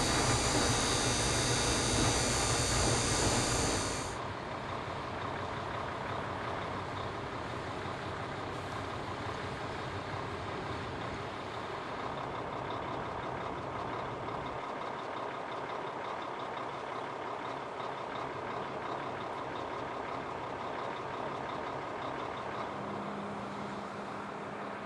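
Potato harvesting and handling machinery running steadily. About four seconds in, a louder machine cuts to a quieter steady run, and a low hum joins near the end.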